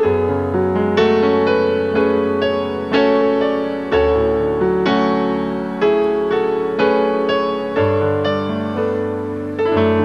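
Solo keyboard with a piano sound playing a slow, gentle introduction: notes struck about once a second over held chords, each dying away, with the bass note changing every four seconds or so.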